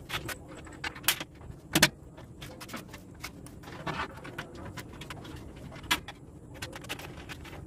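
Small steel bolts and nuts clinking against the sheet-steel wall of an offset smoker's main chamber as they are picked up and fitted: scattered sharp metallic clicks, the loudest about two seconds in.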